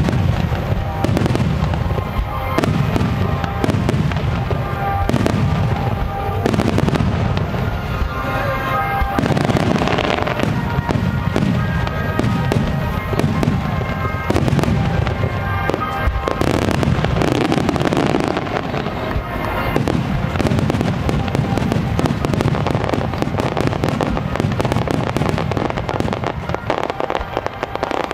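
Starmine fireworks: aerial shells bursting one after another in quick succession, with music playing alongside.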